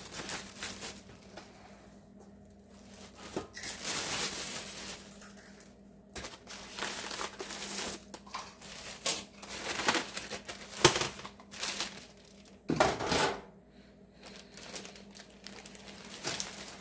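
Clear plastic wrapping and packing paper crinkling in irregular bursts as deep-fryer wire baskets are unwrapped by hand, with a few sharp knocks.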